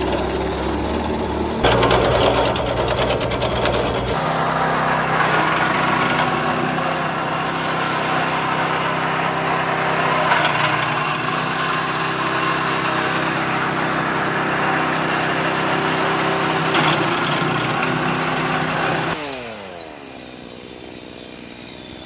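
Small petrol-engine wood chipper running and chipping branches, with cuts between clips early on. About nineteen seconds in, its pitch falls away and the sound drops much quieter as the machine winds down.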